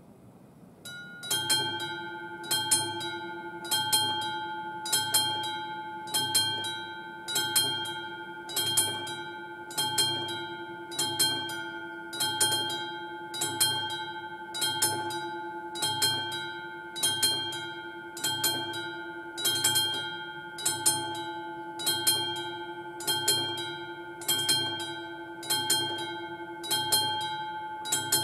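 Classic electric level-crossing warning bell, beside AŽD 71 flashing lights, starts ringing about a second in and keeps ringing steadily, with a strong stroke roughly every second: the crossing is warning of an approaching train.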